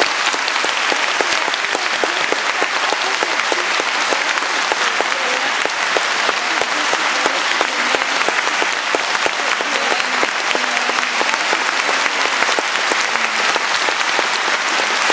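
Audience applauding, a dense, steady clapping that holds at one level throughout.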